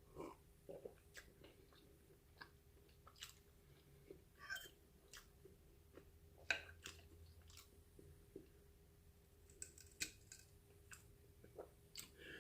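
Faint chewing with scattered small wet mouth clicks and smacks, a bite or two a second, with a slightly louder smack about six and a half seconds in.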